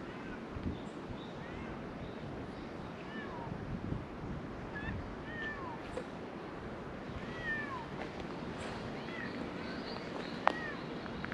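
Cats meowing again and again in short, high cries, over a steady low rumble of wind on the microphone, with one sharp click about ten and a half seconds in.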